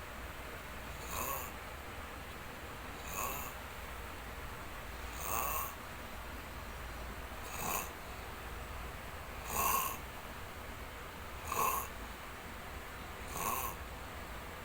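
Snoring in a steady rhythm: a short snore about every two seconds, seven in all.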